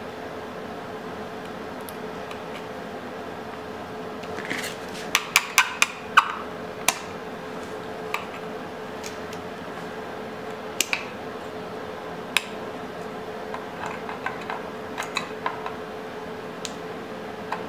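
Sharp metal clicks and clinks of needle-nose pliers against new cotter pins and the steel retaining plate on a motorcycle rear drum brake's shoes as the pins are bent over. There is a quick run of about six clicks a few seconds in, then scattered single clicks and light ticks over a steady faint hum.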